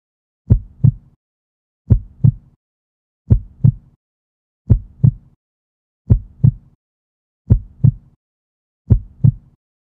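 Slow heartbeat sound effect: a low lub-dub double thump repeating about every second and a half, seven beats in all.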